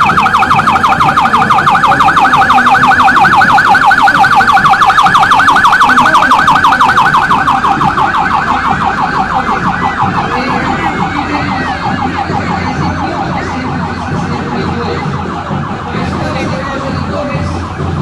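Ambulance siren sounding a rapid, fast-repeating warble as the ambulances pass, loud at first and fading gradually from about seven seconds in as they move away.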